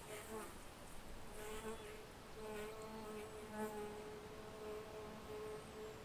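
A flying insect buzzing with a steady hum that wavers slightly in pitch and swells and fades as it moves about, dying away near the end.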